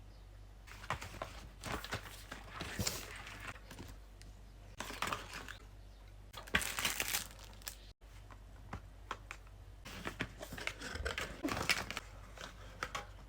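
Packaging being handled and opened: crinkling and tearing in three bouts of crackles with short lulls between them.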